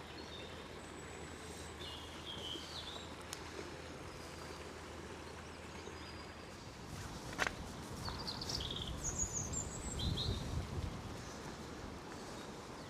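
Small songbirds chirping briefly a few times over a steady outdoor hiss. There is a single sharp click midway, followed by a low rumble lasting a few seconds.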